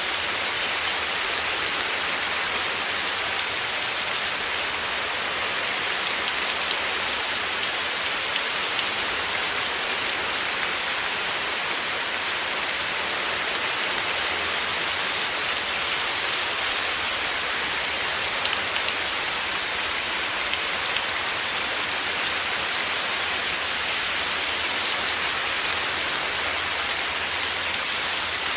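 Heavy rain falling in a steady, dense hiss, with no pauses or separate strikes standing out.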